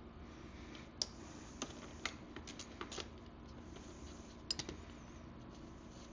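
Faint, irregular light clicks and taps of a hand tool working the rear brake retainer nut on a vintage dirt bike's wheel hub, with the sharpest clicks about a second in and again near four and a half seconds.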